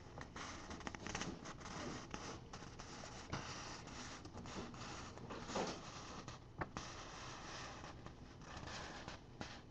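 Faint scratching and rustling of a printed paper sheet being handled, with scattered small clicks.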